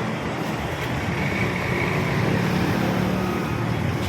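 A motorcycle engine running steadily while riding along a road on a test ride after an engine overhaul, with wind noise on the microphone.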